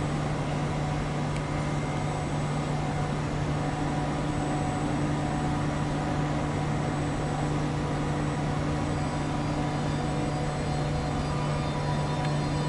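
Standing ETR 485 Frecciargento electric train giving off a steady hum from its onboard equipment: a strong low tone with fainter higher tones over a hiss.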